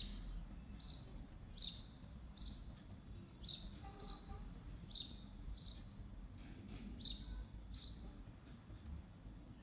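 A bird chirping over and over, short high chirps at a steady pace of about one a second.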